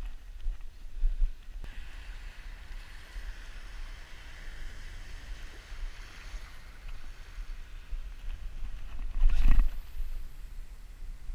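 Wind buffeting the microphone with a low rumble, over small surf waves washing at the water's edge. A brief louder rush comes near the end.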